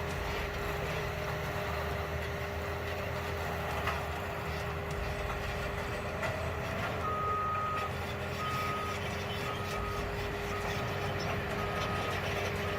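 Bulldozer engine running steadily, with its reversing alarm starting about halfway through: a single high beep repeating about once a second as the machine backs up.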